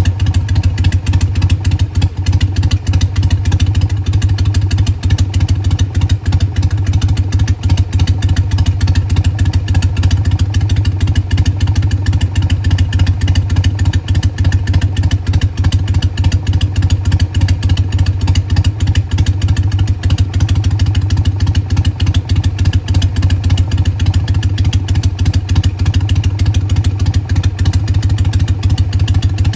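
Harley-Davidson Sportster 883's air-cooled V-twin engine idling steadily, with no revving.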